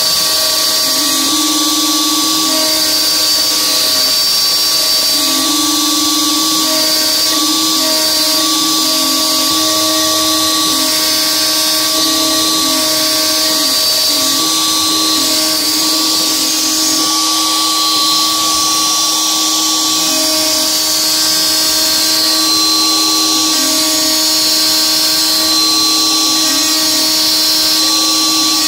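DeWalt DWP-611 router on an X-Carve CNC, set to speed 2, spinning a 1/8-inch two-flute carbide end mill and cutting dry roughing passes in 6061 aluminum. It makes a steady, loud high whine, and a second cutting tone starts and stops every second or two as the tool moves through the part.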